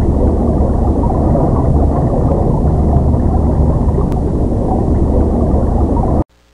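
Steady low rumble and gurgle of moving water in an aquarium tank, which cuts off abruptly near the end.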